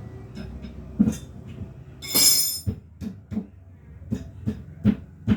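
Metal tyre levers knocking and clinking against a wheel rim during tyre removal by hand, with a loud, bright, metallic scrape about two seconds in.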